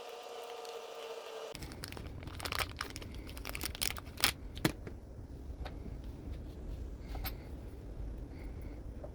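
Small hand-work noises of an RC car's spur gear assembly being taken apart: scattered clicks and rattles of a screwdriver and small plastic and metal parts, with two sharper clicks a little after the middle. A steady hum cuts off about a second and a half in.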